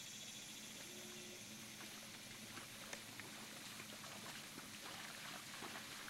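A Thoroughbred horse's hooves splashing through shallow water at a walk, the irregular splashes starting about two seconds in and coming more often toward the end.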